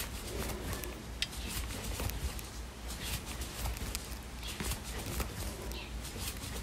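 Crochet hook and cotton yarn being worked stitch after stitch: faint, irregular little clicks and rustles.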